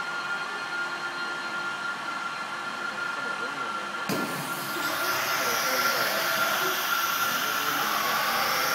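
Gantry CNC router running, a steady machine whine with a held high tone and hum as its head travels over the table. About four seconds in a hiss comes in suddenly and the sound grows a little louder.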